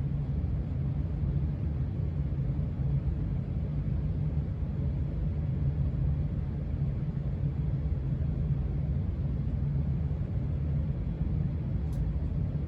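Steady low rumble of an HVAC system running, with a Casablanca ceiling fan turning on its third speed. The level holds even throughout.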